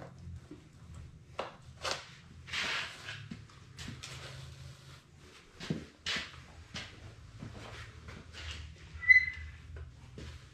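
Scattered short scrapes, rustles and knocks of hands and tools working on a deer shoulder mount and its cape, over a low steady hum, with a brief high squeak about nine seconds in.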